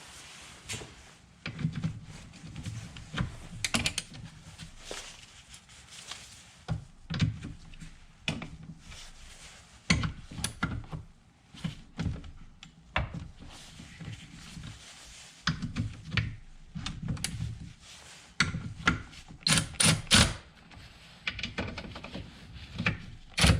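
Irregular clicks, knocks and thunks of hand work on plastic parts and tools in a BMW engine bay, as the hoses and fittings of a new coolant expansion tank are put back in place.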